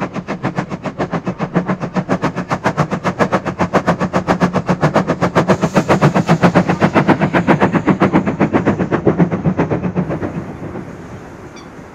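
Steam locomotive working a heavy freight, its exhaust beating rapidly and evenly at about five to six beats a second, growing louder and then fading away about ten seconds in, leaving a fainter rumble of the train.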